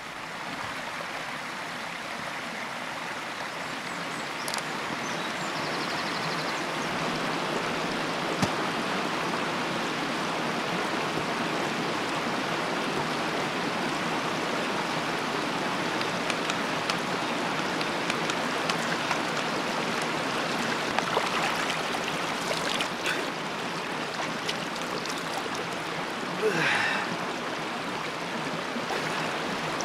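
Shallow, rocky stream running over stones and small falls: a steady rush of flowing water that swells in over the first few seconds.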